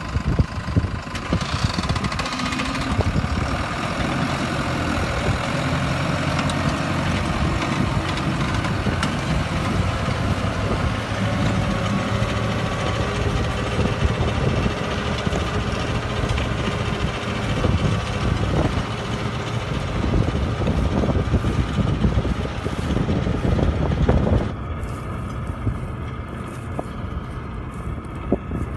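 Case JX100 Pro tractor's diesel engine running steadily under way. About 24 seconds in, the sound drops and turns duller.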